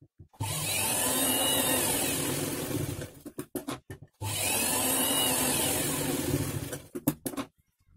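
Electric sewing machine stitching, in two steady runs of about two and a half seconds each with a short pause between, as a dart is double-stitched so the seam won't come apart. A few sharp clicks near the end.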